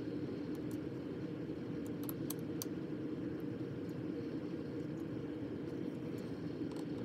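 Steady low background hum, with a few small, light clicks about two seconds in as a small metal part and a screwdriver are set down on a table.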